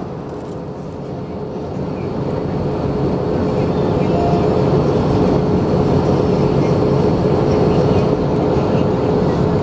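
Cabin noise of an Airbus A321 in descent, heard from a seat over the wing: steady airflow rush and the hum of its CFM56-5B engines, with one steady tone running through it. The noise grows louder over the first few seconds, then holds.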